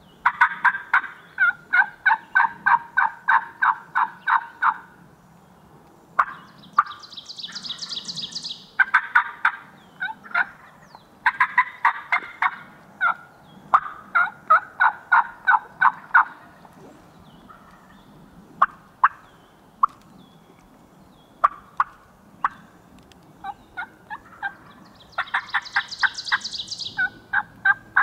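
Turkey calling in long runs of rapid, evenly spaced yelps, about five a second, several seconds at a stretch, with pauses between runs. Twice a shorter, higher-pitched rapid series of notes sounds over it.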